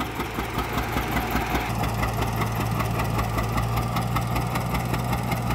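John Deere 60's two-cylinder engine idling, a steady, rapid, even pulse.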